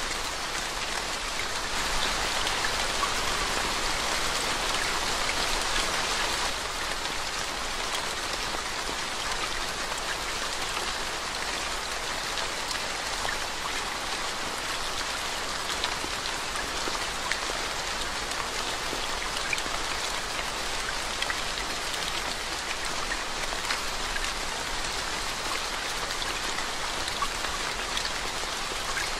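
Steady rain falling on a flooded road and the leaves around it, with single drops ticking now and then. It is heavier for a few seconds near the start.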